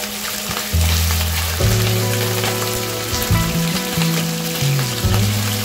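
Raw chicken pieces sizzling steadily in hot oil in a wok, under background music with a low bass line.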